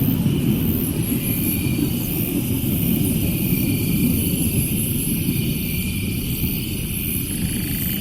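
Steady low, distant rumble with no train horn sounding, over high-pitched chirping that repeats in short pulses.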